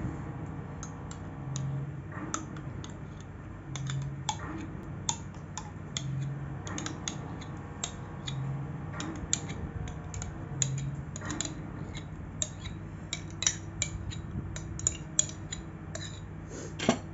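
Spoon clicking and tapping against a glass baking dish and the mayonnaise container as mayonnaise is scooped onto a chicken macaroni salad mix: many quick, irregular clicks, the sharpest near the end, over a low steady hum.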